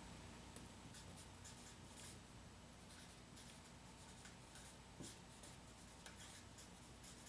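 Dry-erase marker writing on a whiteboard, faint, in short strokes with brief pauses between them.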